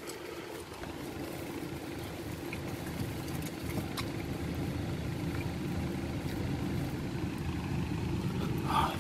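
A car engine idling, heard from inside the cabin: a steady low hum that slowly grows louder, with a few faint clicks.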